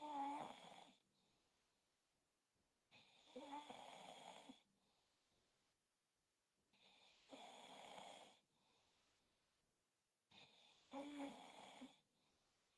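A man snoring in his sleep: four faint snores, one roughly every three and a half seconds, each lasting a second or two.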